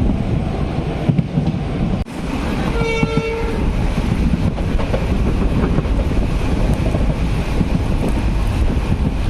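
Passenger train running with a steady rumble of wheels on the rails, and a short horn blast about three seconds in.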